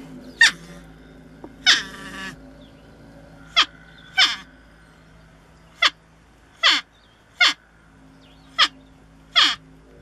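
North American porcupine calling: about nine short, sharp squeals, each sliding quickly down in pitch, repeated every second or so.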